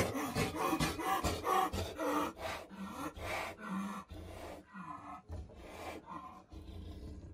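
Injured jaguar snarling and growling in rough bursts, loudest in a sharp snarl right at the start, then in shorter, quieter growls over the following seconds.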